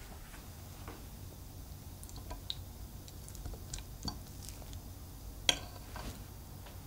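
Metal fork cutting into a soft egg-and-cheese omelette on a ceramic plate: scattered light clicks and taps of the tines, with one sharp clink against the plate about five and a half seconds in.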